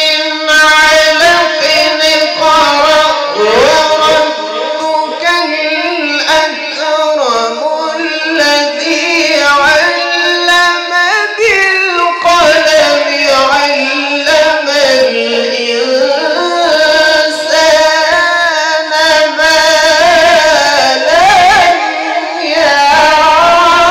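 A young man chanting a long, melodic (mujawwad-style) Qur'an recitation unaccompanied into a microphone, with long held notes and ornamented glides in pitch, broken only by short breaths.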